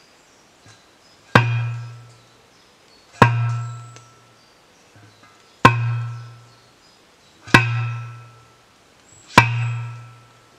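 Manual post driver rammed down onto a wooden post, driving it into the ground: five heavy strikes about two seconds apart, each a sharp clang followed by a low ringing boom that dies away within a second.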